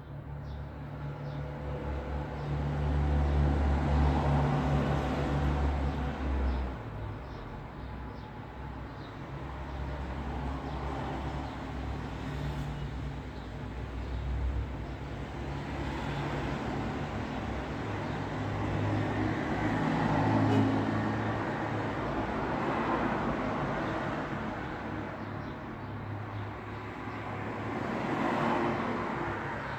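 Road traffic: vehicles passing one after another over a steady tyre and engine hum, swelling and fading as each goes by. A heavy engine rumble is loudest in the first few seconds.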